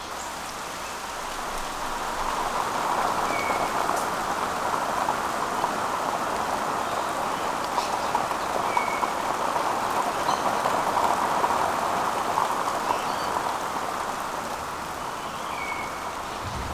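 Steady rain falling, growing louder through the middle and easing near the end, with a few brief bird chirps.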